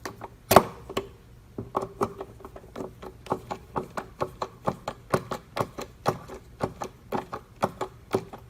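A quick run of small, even clicks, several a second, from a hand screwdriver tightening the small screws of a 3D-printed filter plate on a shop vacuum. The screws are being snugged down gradually to compress the O-rings.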